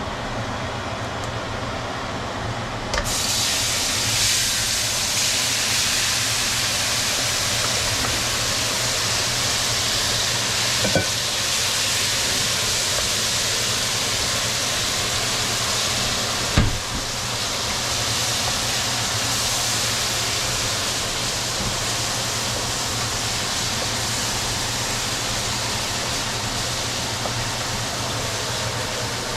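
A loud, steady hiss that comes on suddenly about three seconds in and then holds, with a single short knock partway through.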